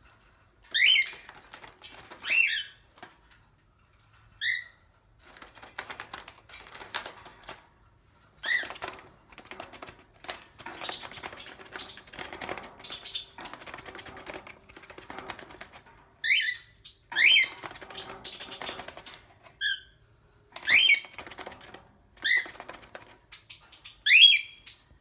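Cockatiel giving short, rising contact calls again and again, about a dozen in all, with quieter rapid clicking and scratching between them.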